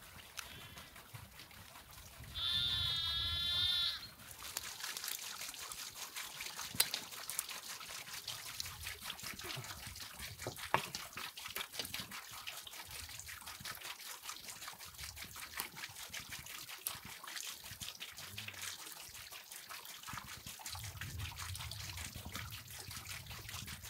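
A single wavering bleat about a second and a half long, a couple of seconds in. After it comes a steady fine crackle of small ticks.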